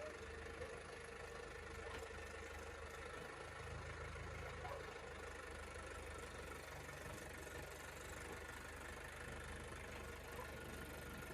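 A motor vehicle engine idling steadily with an even low hum.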